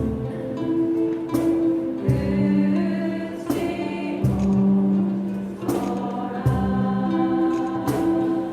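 Several voices singing a song together in chorus, holding long notes over an accompaniment. The accompaniment has a sharp stroke every second or so.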